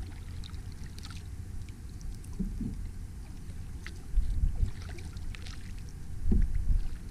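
Kayak on open water: light splashes and drips of water against a steady low rumble, with two louder low thumps about four and six seconds in.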